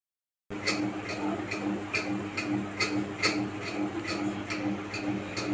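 Young green parakeet eating soft food from fingers. Its beak makes short ticking clicks about two times a second over a low hum. The sound starts after a brief dropout about half a second in.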